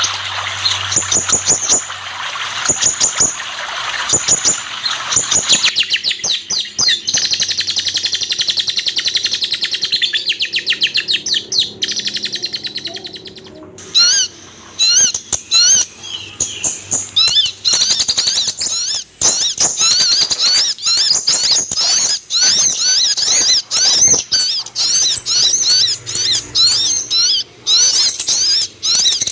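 Van Hasselt's sunbird (kolibri ninja) singing a fast, high twittering song of rapid chirps and trills, with a short break about halfway. For the first several seconds a steady rushing noise like running water lies underneath.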